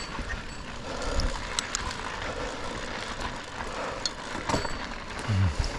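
Mountain bike on a dirt trail: tyre noise over the dirt with scattered clicks and rattles from the bike.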